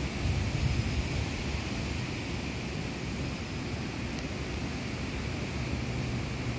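Steady outdoor background rumble with an even hiss, swelling briefly about a second in.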